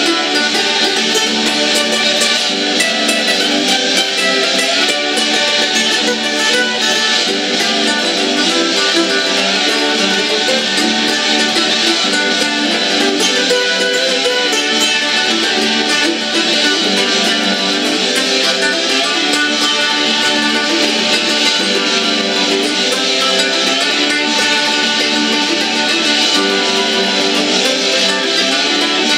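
Mandolin played steadily through an instrumental passage of a rock song, notes picked and strummed without pause, with no singing.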